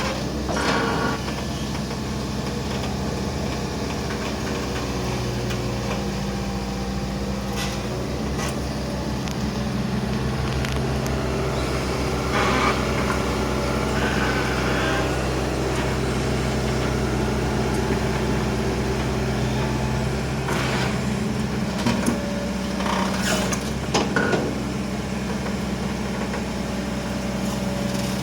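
Hitachi Zaxis 120 excavator's diesel engine running steadily under digging work, with occasional short knocks and clatters from the bucket and soil.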